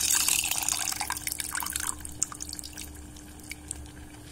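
Tamarind water poured in a stream into thick cooked dal in a pot, splashing for about two seconds, then tailing off into a few drips and small pops.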